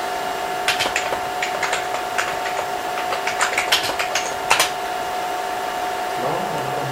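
Keys being typed on a computer keyboard: a quick, uneven run of clicks, entering a short command, that stops about four and a half seconds in. A steady hum runs underneath.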